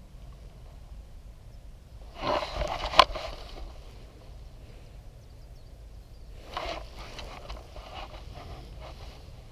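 Rustling and scraping noises in two short bursts, with one sharp click about three seconds in, over a steady low rumble.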